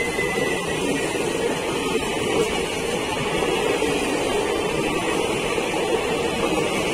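Passenger train coaches passing close by at speed: a steady rumble of steel wheels on the rails.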